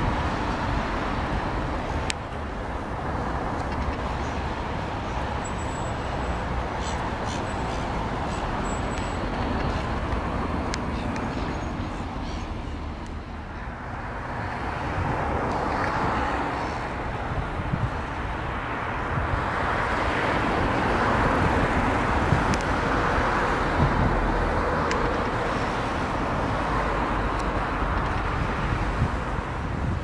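Steady outdoor background noise: a low rumble and hiss that swells and eases over several seconds, with a few faint high peeps about five to nine seconds in.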